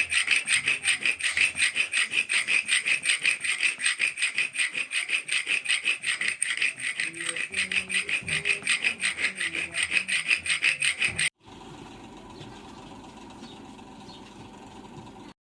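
Metal file rasping across a steel chisel blank in quick, even strokes, then cutting off suddenly about eleven seconds in. A quieter steady noise follows.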